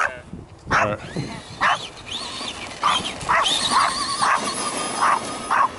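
A dog barking repeatedly, about eight short barks roughly half a second apart, as it chases an RC monster truck. Behind the barks the truck's electric motor whines, rising and falling in pitch.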